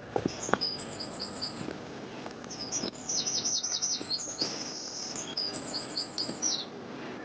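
Small songbird singing a noisy, high-pitched song of rapid trilled phrases, with a brief pause about two seconds in.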